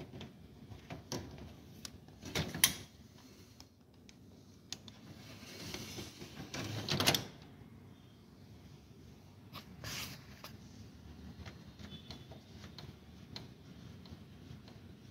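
Plastic clicks and knocks from parts of a Canon iR2202 copier being handled, with a sliding scrape that builds for about two seconds and ends in a sharp clack, then a few lighter clicks.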